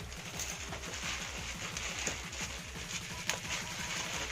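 Handling noise from unboxing: irregular rustling and light knocks of packaging and parts being moved about, with one sharp click a little after three seconds in.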